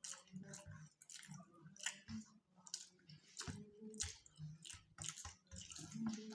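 Faint, wet squishing and light ticks of fingers mixing rice on steel plates, with chewing, in short separate sounds about one or two a second.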